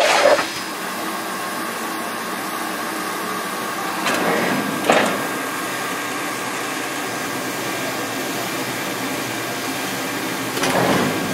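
Standing 0-6-0 steam locomotive No. 7470 hissing steadily with steam, with three brief louder surges: at the start, about five seconds in, and near the end.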